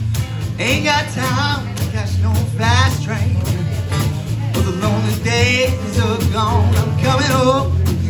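Live pub duo: a man singing with vibrato over a strummed acoustic guitar, backed by a drummer on snare drum, kick drum and cymbal.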